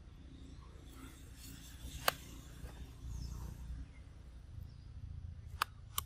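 Low steady outdoor rumble with a few short sharp clicks: one about two seconds in and two close together near the end.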